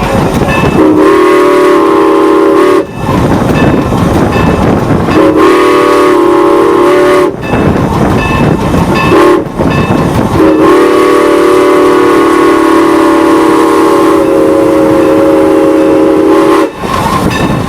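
Steam locomotive's chime whistle blowing two long blasts, one short and one long: the standard grade-crossing signal. Between the blasts the loud steam exhaust and running noise of the passing train can be heard.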